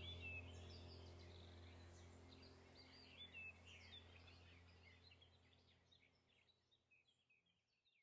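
Faint high bird chirps over a low, steady drone of background music, both fading out to silence near the end.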